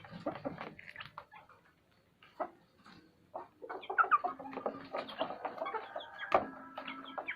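Kampung (village) chickens clucking, with many short calls overlapping, sparse at first and busier from about halfway through.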